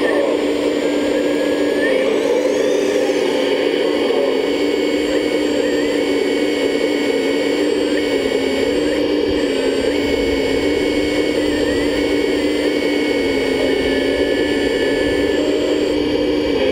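1/14-scale Lesu ET30H RC hydraulic excavator running as it digs: a steady whine from its hydraulic pump and drive, its pitch dipping and recovering slightly every few seconds as the arm and bucket take load.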